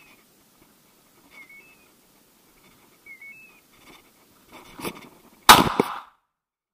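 A single shot from a side-by-side double-barrelled shotgun about five and a half seconds in, dying away within about half a second. Just before it there is a brief rustle, and earlier faint short chirps repeat about every second and a half.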